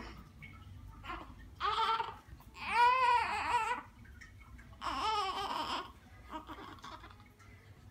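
Newborn baby crying: three short, high-pitched cries, the middle one loudest and wavering in pitch.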